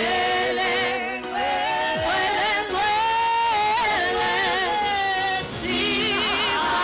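Voices singing a slow worship song, with long held notes that waver with vibrato.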